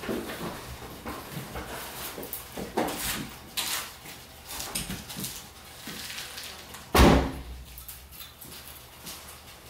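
Driver climbing out of a Mazda Miata with small knocks and rustles, then the car door shut with one heavy thud about seven seconds in.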